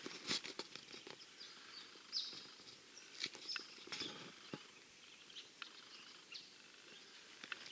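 Quiet outdoor ambience with scattered light clicks and a few short, high bird chirps.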